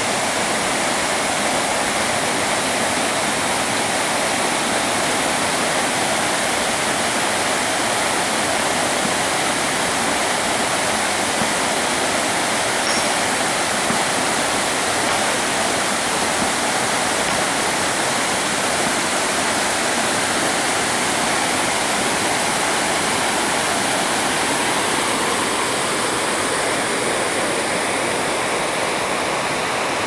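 Water of a small rocky forest waterfall rushing and splashing down over stones, a steady, unbroken rush.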